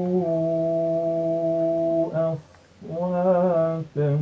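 A man's voice reciting the Quran in melodic tajweed style. He holds one long steady note that ends about two seconds in, pauses briefly for breath, then sings a wavering, ornamented phrase.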